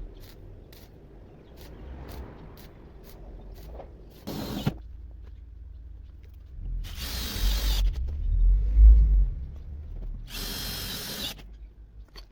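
Power drill running in three short bursts, the second and third about a second long, typical of driving fasteners into sheet metal. Light clicking and handling noise come before the first burst.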